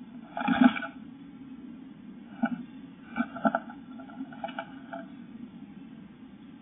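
Blue tit moving about inside a wooden nest box, its feet scratching and scrabbling on the bare wooden floor. There are a few short scuffles, the loudest about half a second in and smaller ones after 2 and 3 seconds, with a steady low hum underneath.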